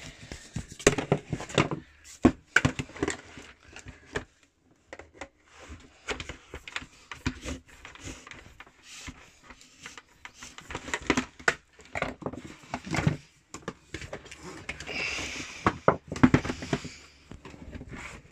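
Irregular plastic clicks, knocks and rustling as a vacuum cleaner's hose, telescopic wand and brush head are handled and fitted together; the motor is not running.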